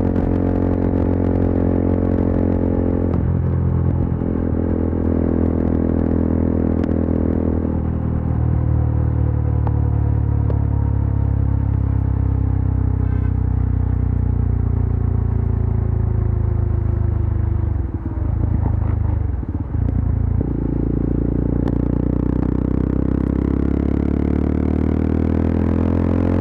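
Yezdi Adventure's 334 cc single-cylinder engine and exhaust under way on the highway. The engine note changes a few seconds in and again about eight seconds in, then slowly falls as the bike eases off. It breaks up for about two seconds near two-thirds of the way through, then settles to a steady cruise.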